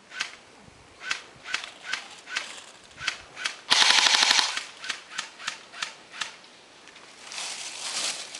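Airsoft guns firing: a string of single shots as sharp cracks about half a second apart, then a short, loud full-auto burst about halfway through, then more single shots.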